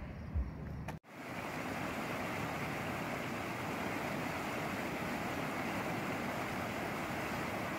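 Rushing whitewater: a steady, even rush of churning river water that cuts in suddenly about a second in, after a moment of quieter outdoor background.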